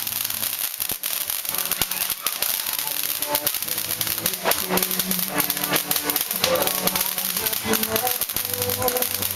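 Diamond Jumbo ground fountain firework spraying sparks: a steady dense hiss shot through with many sharp crackles. Music plays underneath from about three seconds in.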